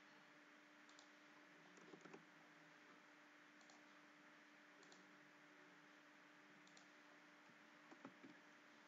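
Near silence with faint computer mouse and keyboard clicks, one every second or so and a little louder about two seconds in and near the end, over a faint steady hum.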